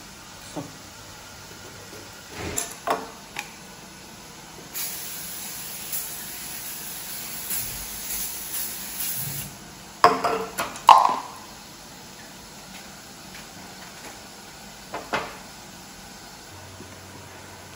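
Aerosol cooking-oil spray hissing onto a metal baking tray for about five seconds, with a few sharp knocks of kitchenware before it and a couple of loud clattering knocks about ten seconds in, the loudest sounds here.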